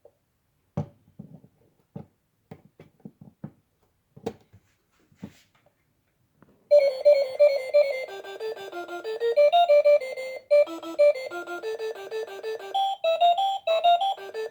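A run of small clicks, then about seven seconds in a simple electronic beeping melody starts and keeps playing: a digital alarm clock's built-in alarm tune.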